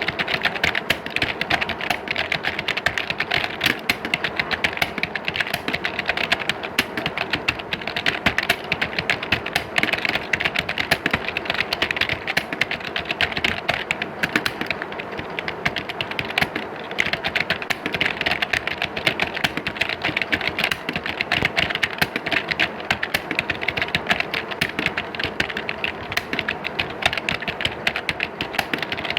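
Many computer keyboards being typed on at once, a dense, unbroken clatter of keystrokes, as in an exam hall full of typists.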